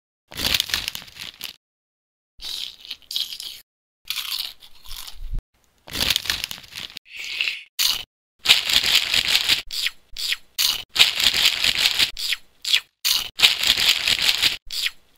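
Cartoon sound effects of a chip bag crinkling and chips crunching, in a string of short bursts that cut off to dead silence between them. The bursts come faster and closer together in the second half.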